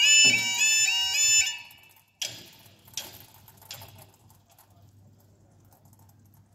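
Level-crossing audible warning sounding its stepped, warbling two-tone 'yodel' alarm, which cuts off about one and a half seconds in, the sign that the barriers are fully lowered. A sharp clank follows, then two fainter knocks.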